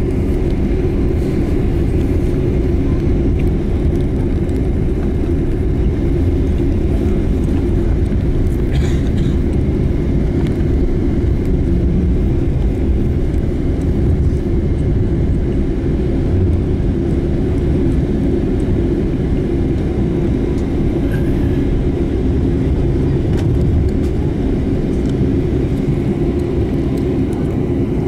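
Steady low rumble inside a jet airliner's cabin, its engines running at low power as it moves along the taxiway.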